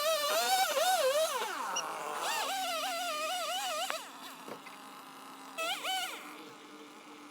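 Chainsaw running at high revs in bursts, its pitch wavering up and down as the throttle is worked during cutting. The pitch falls away about a second and a half in, picks back up, stops around four seconds, and returns in one short rev near the end.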